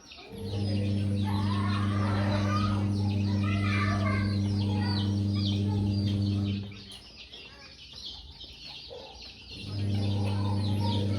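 Many young chicks peeping continuously in short high chirps. Under them a steady low electrical hum cuts out about six and a half seconds in and comes back near the end.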